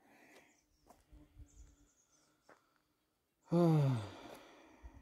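A person's loud voiced sigh about three and a half seconds in, falling in pitch and trailing off over about half a second, after a few faint clicks.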